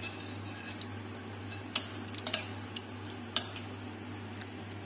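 A few sharp clinks of kitchen utensils against dishware, the loudest two about a second and a half apart, over a steady low hum.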